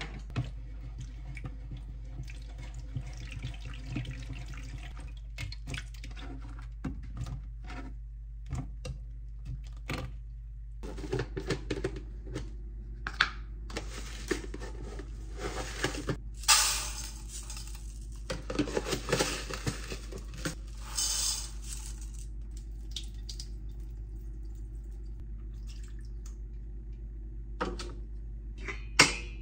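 Water from a kitchen tap running in short spells into a sink, with splashing and the odd clink of something being washed, over a steady low hum. Light clicks and knocks come before and after the running water.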